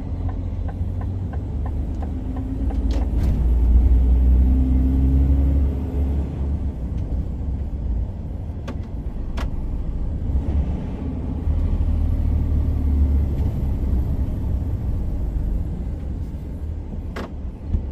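In-cab sound of a DAF XG truck's diesel engine pulling on the road, a heavy low rumble that swells twice as the engine works harder, with a faint high whistle rising and falling during each swell. A few sharp clicks from the cab come through.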